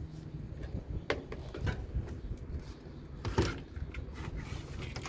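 Washing-machine parts being handled during disassembly: a few light knocks and clicks, about a second in and again around three and a half seconds, over a low hum.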